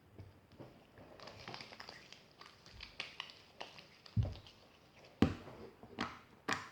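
Homemade fluffy PVA-glue slime being stretched and squeezed by hand, giving irregular small clicks and pops, with a few louder knocks about four, five and six and a half seconds in.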